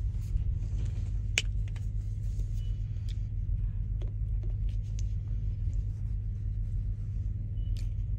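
Steady low rumble of a parked truck, heard from inside its cab, with a few short clicks and taps on top.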